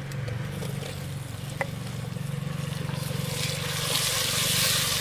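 Chopped tomatoes and green chillies hitting hot ghee in a clay pot and being stirred with a wooden spoon; the sizzle swells loud about three seconds in. A steady low hum runs underneath.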